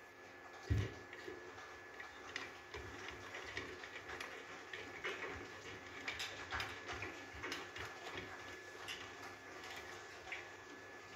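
Irregular light metallic clicks and taps of a wrench working on the discharge-valve fitting of a hand-operated grease pump, as the valve is being unscrewed. One heavier knock comes about a second in.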